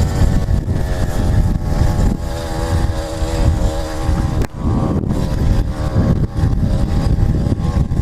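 80cc two-stroke motorized-bicycle engine running while the bike is ridden, its note wavering, over heavy wind rumble on the microphone. A sharp click comes about four and a half seconds in, after which the engine note is weaker.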